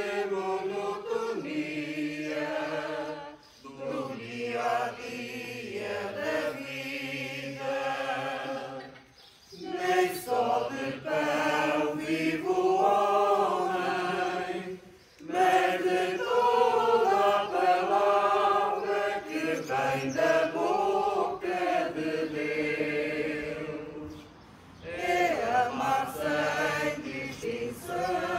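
A small congregation singing a hymn together in sung phrases of a few seconds, with brief pauses between them.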